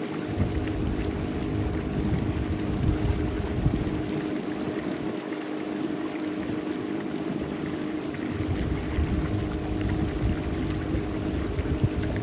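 A boat engine running at a steady speed, its even hum over the rush of water, with an uneven low rumble that comes and goes.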